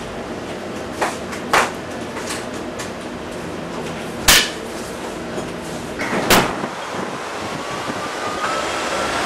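A few sharp knocks and bangs over a steady hiss, the loudest about four seconds in. Street traffic noise comes up near the end.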